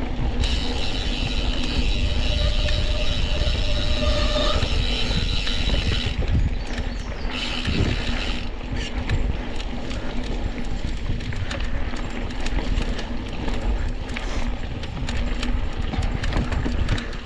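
Mountain bike rolling fast downhill on dirt singletrack: steady tyre and wind rumble with the bike rattling over small bumps. A high buzz from the rear hub freewheeling while coasting runs from about half a second in to six seconds, and again briefly around eight seconds.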